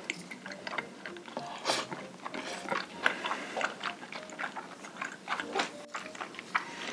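Close-miked chewing of a mouthful of food: a steady run of irregular wet clicks and smacks.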